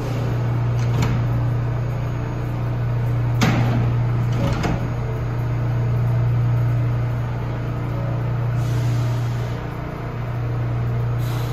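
Subway train standing at the platform with a steady low hum as its doors close: a faint knock about a second in, then two sharper door thuds about a second apart a few seconds later.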